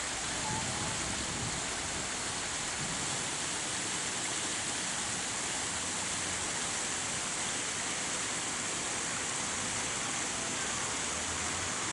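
Steady hiss, even and unchanging, strongest in the high treble, cutting off abruptly at the end.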